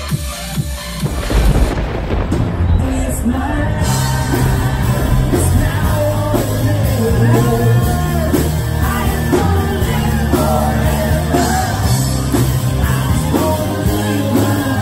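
Live rock band playing with a lead singer, heard loud from among the audience; the full band comes in about two seconds in.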